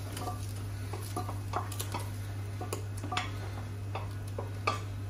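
A wooden spoon knocking and scraping against a stainless-steel pressure-cooker inner pot while browned bacon lardons are emptied out of it: scattered light knocks and clicks over a steady low hum.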